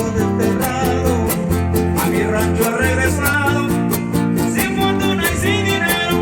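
Huasteco son (huapango) played live by a string trio: a violin melody with wavering, sliding ornaments over a steady strummed jarana rhythm and a plucked huapanguera bass line.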